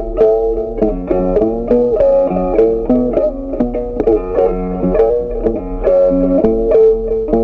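Background music: a melody of quickly picked notes on a guitar.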